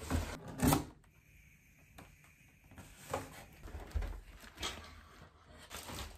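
Quiet handling sounds: a few light knocks and soft rustles of objects being moved and set down.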